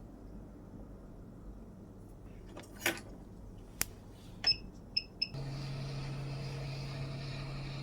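A few sharp clicks and three short electronic beeps, then a hot air rework station starts blowing about five seconds in: a steady low hum with an even rush of air.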